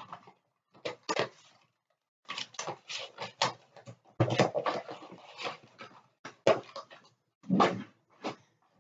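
Irregular rustling and crinkling with light knocks: foil trading card packs and cardboard card boxes being handled.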